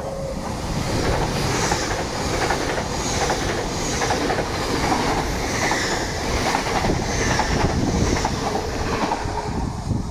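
A pair of LNER Class 801 Azuma electric multiple units running through the station at speed. The wheels rumble on the rails under a loud rush of air, with a repeating clickety-clack as the wheelsets pass. It swells about a second in and eases near the end as the train draws away.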